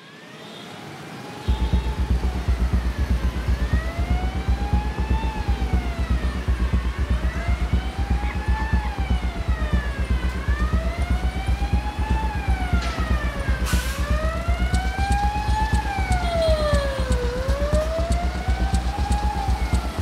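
Wailing emergency sirens, their pitch rising and falling every few seconds in two layers out of step with each other, over a fast, steady low pulsing that starts suddenly about a second and a half in. A single sharp crack comes about two-thirds of the way through.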